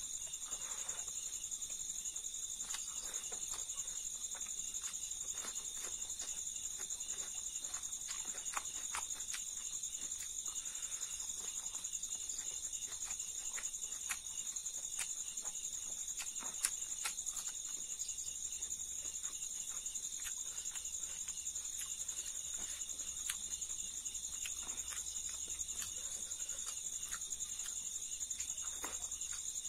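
Steady high chirring of crickets or other insects in the background, with scattered short clicks and crunches of someone chewing spicy fried silkworms and rice close to the microphone.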